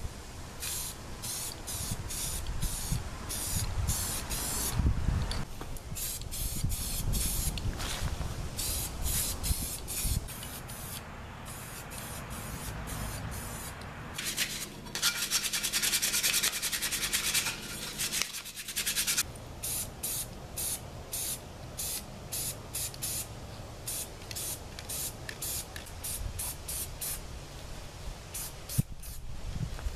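Steel mini bike wheel rims being scuffed with an abrasive to prepare them for paint: a run of short rasping strokes, one to three a second, with a denser unbroken stretch of about four seconds in the middle.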